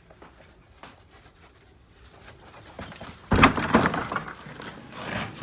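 A wedged wooden door being forced open: after a few quiet seconds it gives way with a sudden loud crash and a short clatter.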